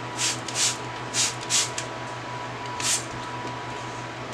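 Hand-held trigger spray bottle misting water: about five quick spritzes, the first four in two pairs and the last nearly three seconds in. A light misting to dampen the live moss on the orchid mounts, not a soak.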